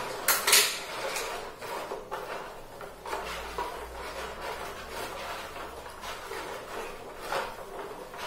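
Metal spoon stirring salt into water in a shallow plastic tray, scraping and rubbing over the bottom in irregular strokes, with a sharp clink about half a second in.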